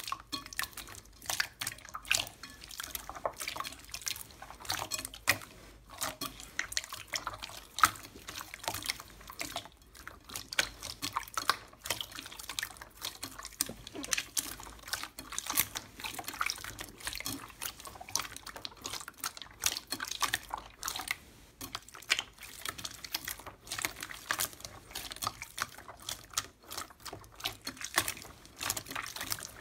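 Hands squeezing and kneading wet, glossy slime, first watery clear slime and then purple glitter slime. The result is a dense, irregular run of wet squelches, pops and crackles.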